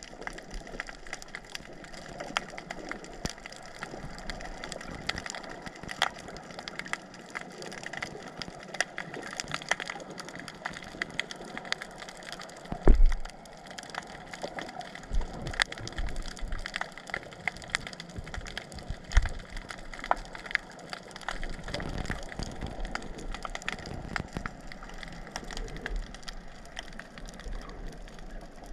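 Underwater ambience: a dense, constant crackle of sharp clicks, with scattered low thumps, the loudest about halfway through.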